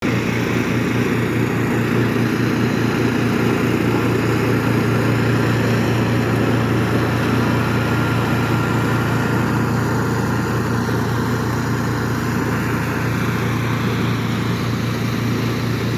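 Steady low mechanical hum from a running motor, holding one even pitch throughout.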